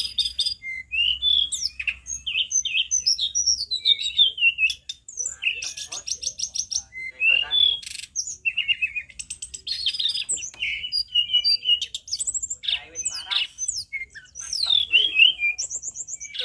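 Hill blue flycatcher (tledekan gunung) singing loudly and continuously: a varied run of high whistled notes that slide up and down, broken by fast rattling trills.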